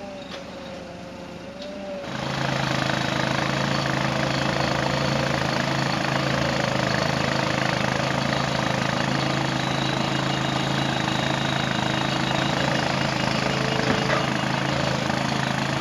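A propane-fuelled TCM forklift's engine running steadily while the forklift carries a loaded bin. The engine comes in abruptly about two seconds in, after a quieter opening.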